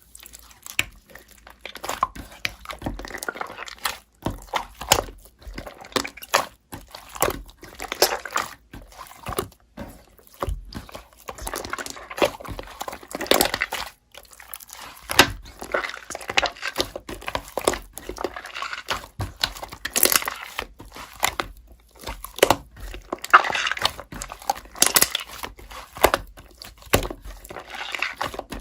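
Slime being pressed, poked and stretched by hand, giving irregular sticky pops, crackles and squishes.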